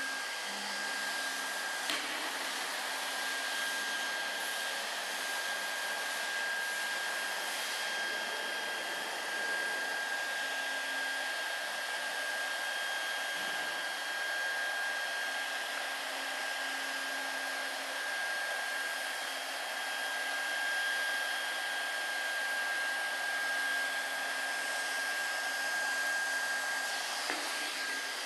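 WELDY foiler ET automatic hot-air welder running while it welds a banner overlap seam: its hot-air blower hisses steadily with an even high whine.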